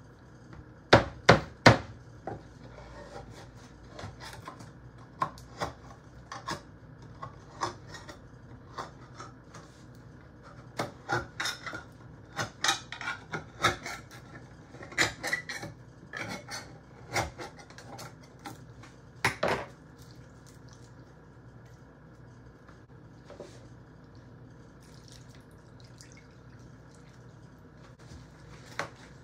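Metal cans knocking on a wooden cutting board, with three sharp knocks in the first two seconds. Later comes a run of clicks and knocks as a hand can opener works around the rim of a can of diced tomatoes.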